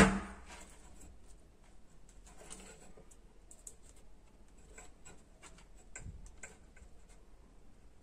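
Light scattered clicks and taps of hands handling a small circuit board and plastic multimeter test probes, with one sharper knock at the very start.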